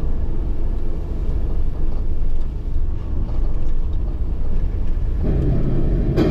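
Steady low rumble of a car driving along a highway, tyre and engine noise. About five seconds in it grows louder and fuller, and a single sharp click follows near the end.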